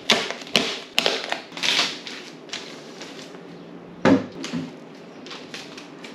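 Plastic protective film crinkling as it is peeled off a 3D printer's glass front door, then one solid knock about four seconds in as the door is shut, followed by light handling taps.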